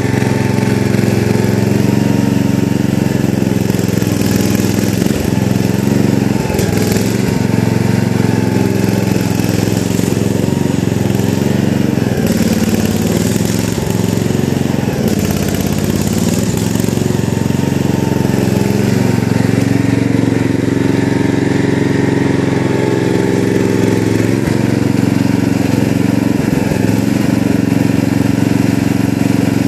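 Gravely 8163B garden tractor's engine running steadily under working load, close by.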